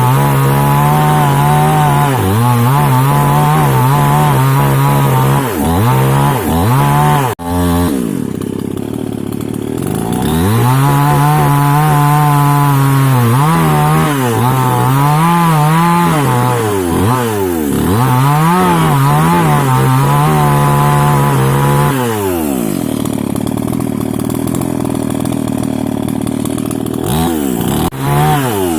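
Mini two-stroke chainsaw running at high revs while cutting into a rubber tree, its engine speed dipping and recovering again and again. About three quarters of the way through it settles to a lower, steadier speed.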